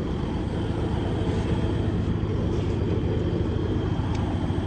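Steady low drone of a truck engine running, with a faint steady high-pitched whine above it.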